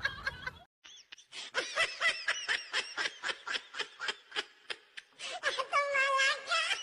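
Laughing in a rapid run of short, pitched pulses, like snickering, followed near the end by one longer wavering call.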